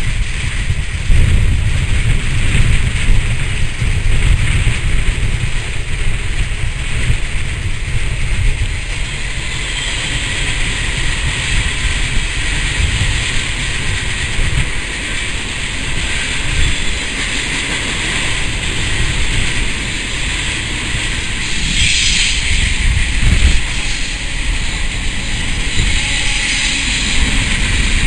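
Steady rumble of moving trains on the rails mixed with wind buffeting the microphone, heard from an open platform of a passenger train running close alongside a double-stack container freight. A brief sharper hiss rises and falls about two-thirds of the way through.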